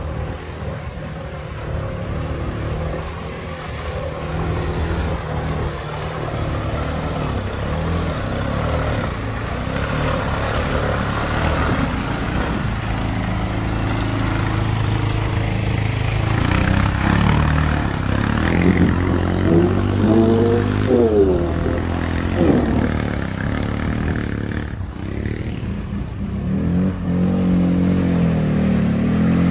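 ATV engines running under load as the quads churn through deep mud and water, revving up and down in several quick bursts about two-thirds of the way through and again near the end.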